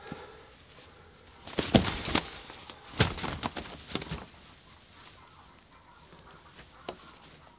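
A runner duck hen squawking and flapping in the hay as she is grabbed off her nest, in two loud flurries about one and a half and three seconds in.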